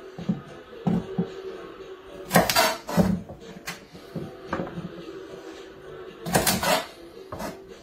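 Chef's knife cutting parsnips on a wooden chopping board: irregular knocks of the blade meeting the board, with quick clusters of chops about a third of the way in and again near the end.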